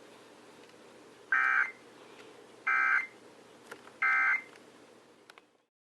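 Emergency Alert System end-of-message (EOM) data tones: three short bursts of digital SAME data, about a second and a half apart, marking the close of the EAS test broadcast. The audio cuts off shortly after the third burst.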